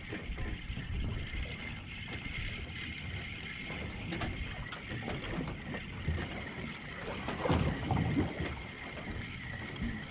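Wind buffeting the microphone aboard a small boat at sea, a continuous low rumble with uneven gusts, the strongest about seven and a half seconds in, over a faint steady high tone.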